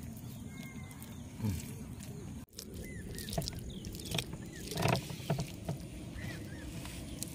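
Hands rubbing thick wet masala paste into a scored fish, giving a few short squelching slaps, the loudest about five seconds in. Small birds chirp now and then over a steady low background rumble.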